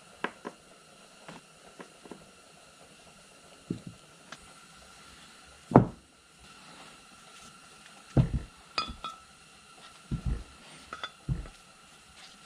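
Scattered light clinks and knocks of small steel parts and a steel drive shaft from a Bridgeport power feed being picked up and set down on a towel-covered workbench. One louder thud comes about six seconds in, and several duller knocks follow in the last few seconds.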